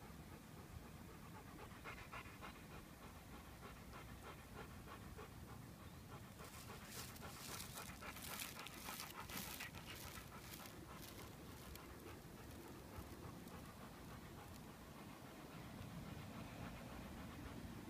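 Golden retriever panting close by in quick, even breaths, loudest about halfway through.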